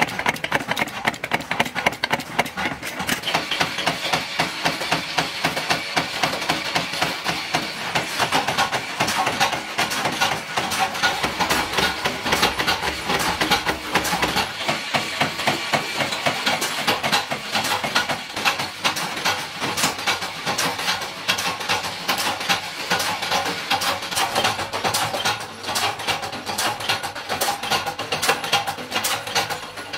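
Belt-driven flywheel punch press stamping round blanks out of sheet-metal strip: a fast, steady run of sharp metallic clanks, several strokes a second, over the press's running drive.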